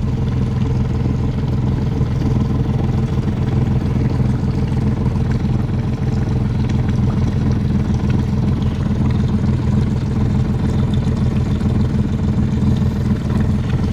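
A boat's engine running steadily, a constant low drone of even engine tones with no change in speed.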